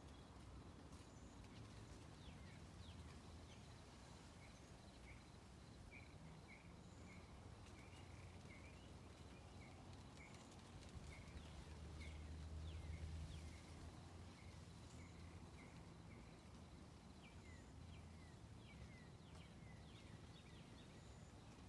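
Faint birdsong: a series of short chirps repeated a few times a second through the middle, and quick high downward-sweeping calls near the start and again near the end, over a low background rumble.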